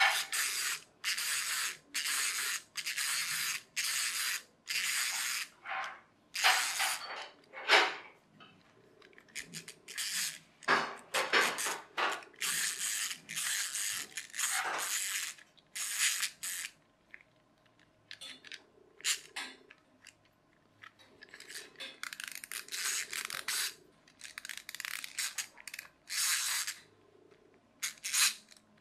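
Small plastic clockwork mechanism of a wind-up toy ankylosaurus whirring and clicking in repeated short bursts, about two a second at first, then at irregular gaps. The gearing is still not aligned right after reassembly.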